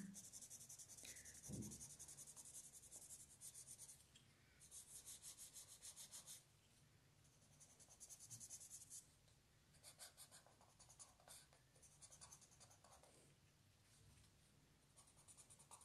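Pencil shading on paper: quick back-and-forth strokes in runs of a few seconds, with short pauses as the colour is laid in.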